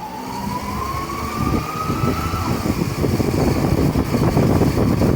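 Daihatsu Atrai S220G van running, with a whine that rises in pitch as it picks up speed and breaks off about two and a half seconds in, after which louder engine and road rumble takes over. The owner takes the whine for an accessory bearing, since the crank pulley is in good condition and the water pump has already been replaced.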